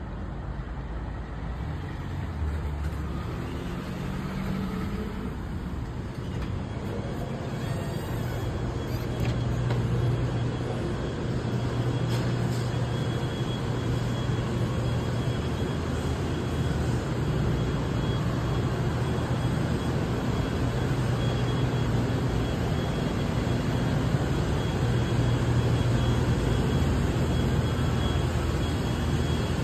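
Steady low hum and background noise of a grocery store's refrigerated display cases and ventilation, which grow a little louder about ten seconds in.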